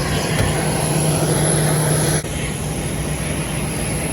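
Steady jet airliner noise: a continuous rush over a low hum, which changes abruptly a little over two seconds in.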